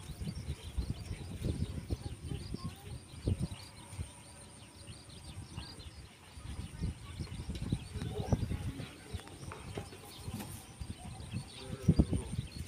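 Rural open-field ambience with small birds chirping faintly throughout and a faint steady high tone. Under it run irregular low rumbles and knocks, the loudest near the end.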